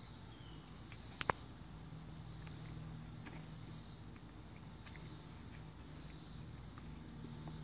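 Faint outdoor background: a steady low hum and a steady high hiss, with faint scattered ticks and two sharp clicks in quick succession about a second in.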